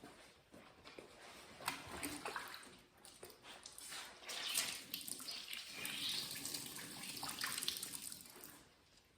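Wet scrubbing and swishing of water being worked by hand over a car's painted panel, in uneven strokes that stop about eight and a half seconds in.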